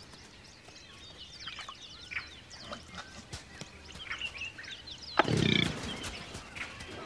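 Scattered bird chirps, and about five seconds in one loud animal call lasting under a second, low-pitched with several tones.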